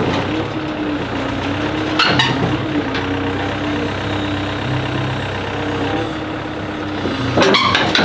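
Diesel engine of a Sunward SWE80E9 crawler excavator running steadily with a slightly wavering hum while its boom and bucket swing. There is a sharp click about two seconds in.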